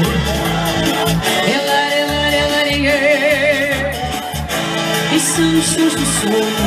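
Live Portuguese festival dance music from a duo: a wavering melody line over bass notes that come on a steady beat.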